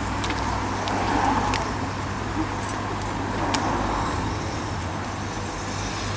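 Steady distant rumble of a 15-inch-gauge miniature steam locomotive and its coaches running slowly in, with a low hum and a few faint clicks.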